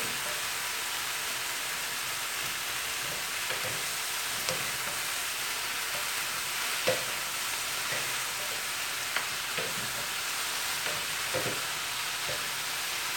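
A stir-fry of vegetables sizzling in a hot skillet, a steady hiss, with a few light knocks as two wooden spatulas toss the food against the pan.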